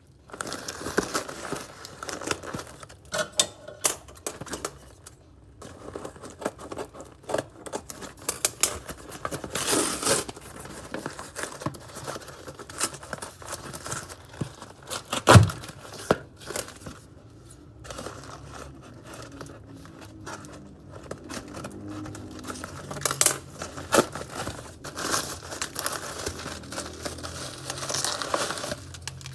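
A parcel's packaging being torn open and crinkled by hand, a busy run of irregular rustles and crackles, with one sharp knock about halfway through.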